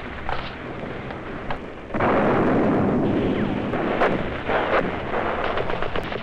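Battle sounds: a continuous rumble of gunfire and explosions that grows louder about two seconds in, with many sharp gunshots cracking through it in the second half.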